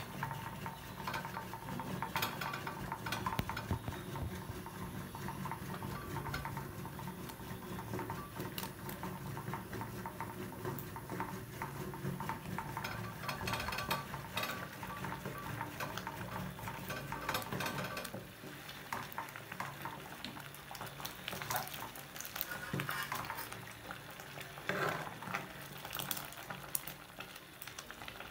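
A wooden stirring stick working a thick stinging-nettle (sisnu) mixture in an aluminium pot, with continual scraping and small knocks against the pot's sides and bottom over a steady low hum. A few sharper clinks come near the end.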